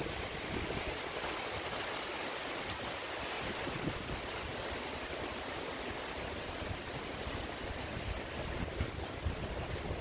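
Wind blowing steadily through pine and broadleaf trees, a continuous rush of rustling foliage.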